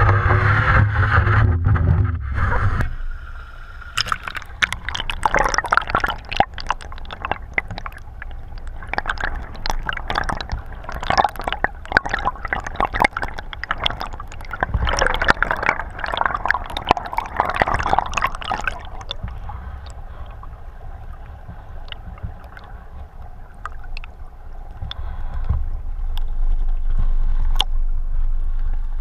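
Spring water heard underwater: loud sloshing at first, then from about four seconds in a dense crackle of clicks and bubbling over gravel. After about two-thirds of the way through, this thins out to a low rumble with only scattered clicks.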